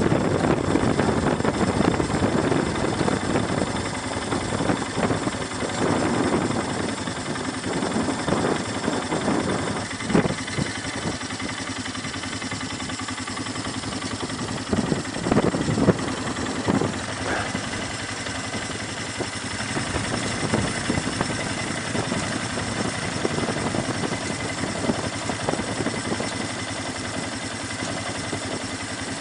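ATV engine running steadily at idle, a little louder for the first few seconds, with a few short knocks about halfway through.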